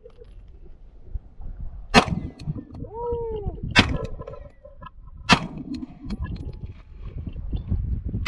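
Glock 19 9mm pistol firing slow single shots: three shots roughly one and a half to two seconds apart, and another right at the end.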